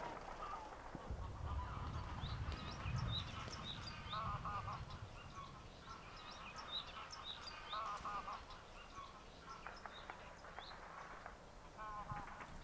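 Countryside ambience of waterfowl honking in repeated calls, with small birds chirping higher up, over a low rumble for the first few seconds.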